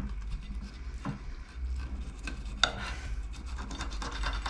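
Small kitchen knife cutting along the back of a perch to lift a fillet, soft scratchy rasping strokes as the blade works through flesh and over bone. A single sharp tick about two and a half seconds in.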